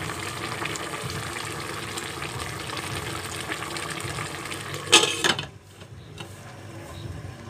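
A pot of fish stew boiling, with steady bubbling and crackling. About five seconds in, a glass pot lid is set on with a brief clatter, and the bubbling is muffled after that.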